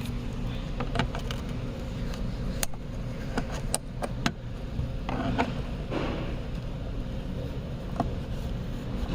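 Scattered sharp plastic clicks and small knocks as pliers grip and work a Christmas-tree push pin out of the plastic rear deck trim of a 2007 Saab 9-5, over a steady low background noise.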